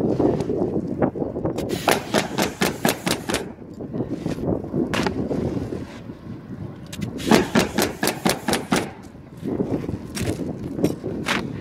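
Pneumatic roofing nail gun firing nails through shingles into the roof deck in quick runs of several shots, about six a second, with pauses between runs. Gusty wind rumbles on the microphone in between.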